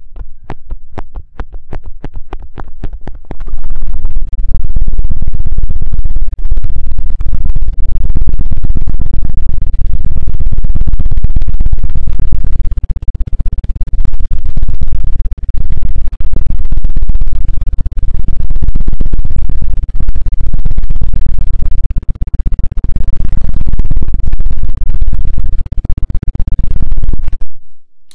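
A run of quick taps on an ASMR microphone, about four or five a second, then fast, loud scratching and rubbing directly on the microphone, deep and muffled. It stops suddenly near the end.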